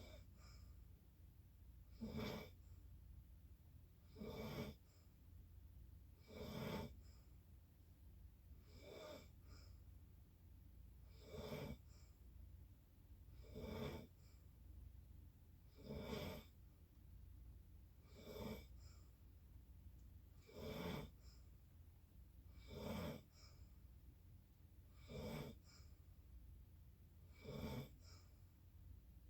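Snoring in slow, regular breaths, one short snore about every two and a half seconds.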